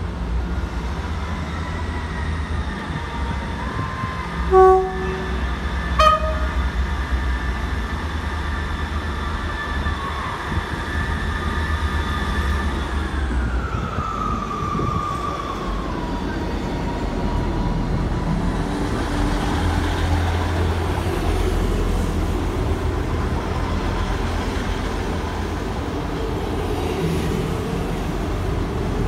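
Class 158 diesel multiple unit pulling out. Its horn gives two short toots a little over a second apart, a low note then a higher one, over the drone of its diesel engines. Midway the engine whine drops in pitch, and the rumble and wheel noise grow as the train runs past.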